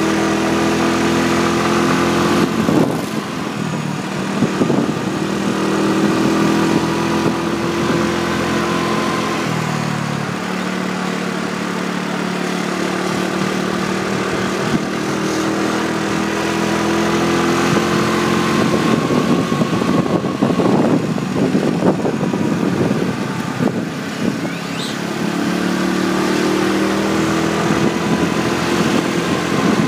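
Motorbike engine running under way, its pitch shifting several times as it climbs, with wind buffeting the microphone in gusts.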